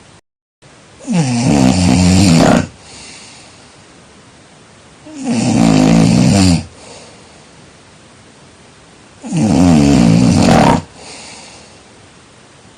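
A person snoring loudly: three long snores about four seconds apart, each lasting about a second and a half.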